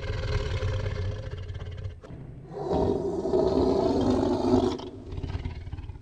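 Tiger roaring and growling in rough, rumbling calls. A brief break comes about two seconds in, then a louder roar in the middle, trailing off into a weaker growl near the end.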